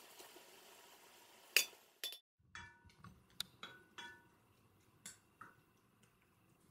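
Wooden spatula knocking against the sides and rim of an enamel-lined pot while stirring sliced apples as they cook: scattered sharp clinks with a short ring, the loudest about one and a half seconds in.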